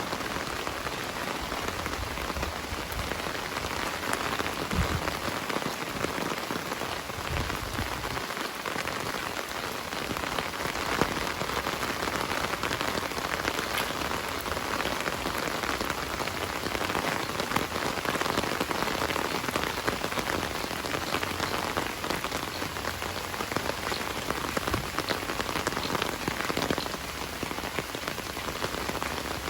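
Heavy rain falling and pattering on surfaces: a steady dense hiss full of fine drop ticks.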